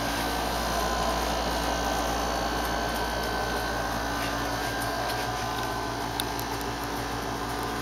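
Window air-conditioning unit running with a steady hum and fan noise.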